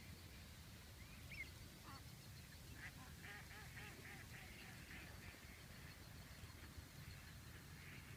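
Faint duck quacks: a couple of single calls, then a quick run of about four quacks a second for a few seconds.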